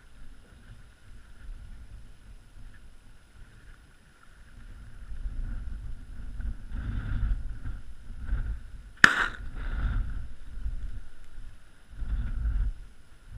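A single shotgun shot about nine seconds in, sharp and loud with a short trailing echo, over gusts of wind rumbling on the microphone.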